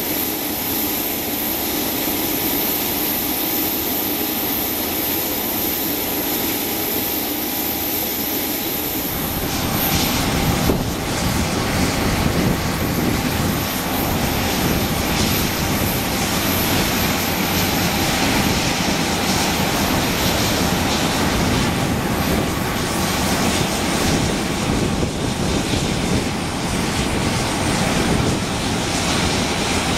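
Turboprop engines of several Embraer A-29 Super Tucanos running as the aircraft taxi. A steady high hiss comes first; about nine seconds in, the sound becomes louder and deeper and stays steady.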